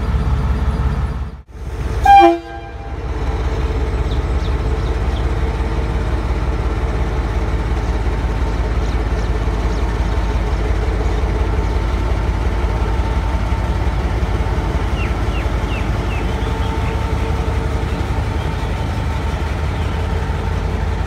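A diesel locomotive horn gives one short, loud toot about two seconds in, just after the sound briefly cuts out. Around it, a diesel locomotive engine runs with a steady low rumble.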